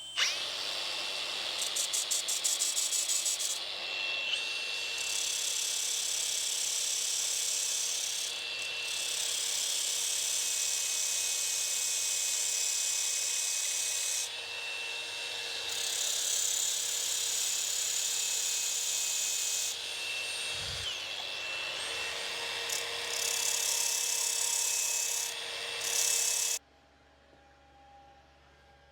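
Power grinder grinding down a metal part: a steady motor whine under a harsh rasping hiss that swells and eases as the wheel is pressed on and lifted, stopping abruptly near the end.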